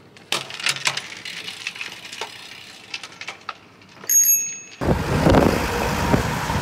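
Scattered light clicks and ticks as a road bike is wheeled along, then a brief high-pitched ring about four seconds in. Near the end a sudden, steady rush of wind and road noise on a phone microphone begins as the scene cuts to riding beside traffic.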